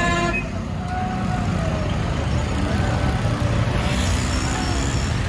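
Truck and bus engines running in a slow-moving convoy: a dense, steady low rumble. A vehicle horn cuts off just after the start.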